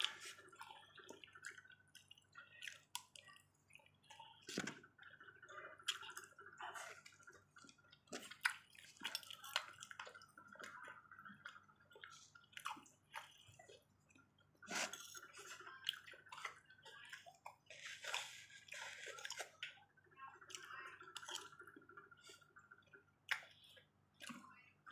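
Close-up chewing and wet mouth sounds of a person eating rice, with a spoon and fork clicking and scraping in a foam takeout container.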